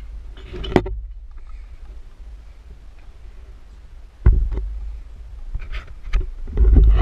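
Wind buffeting the microphone as a low rumble, turning into loud gusts about four seconds in, with a few knocks from the camera being handled.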